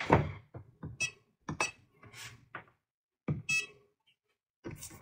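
Multimeter test probes being put down on the bench and buttons pressed on a handheld oscilloscope: a scatter of light clicks and small clinks, mostly in the first three and a half seconds.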